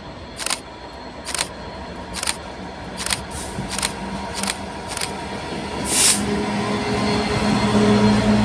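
Class 66 diesel locomotive pulling slowly out, its engine running with a low steady hum that grows louder over the last couple of seconds as it nears. About ten sharp clicks from the wheels on the track come at uneven intervals through the first six seconds.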